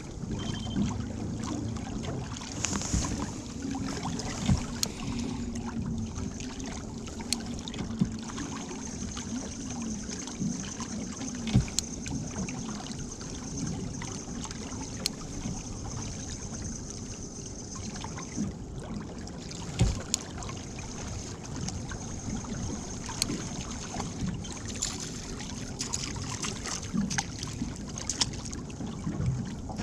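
Small fishing boat adrift: water lapping against the hull, with scattered short knocks on the boat over a steady low rumble. A faint, thin high-pitched whine comes and goes.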